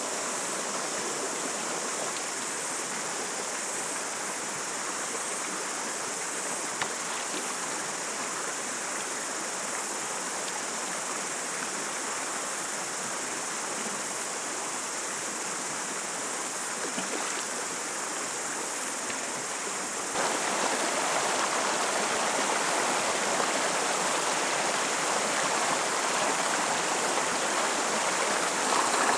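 Shallow rocky stream running over stones, a steady rush of water. About twenty seconds in it becomes a louder, fuller rush.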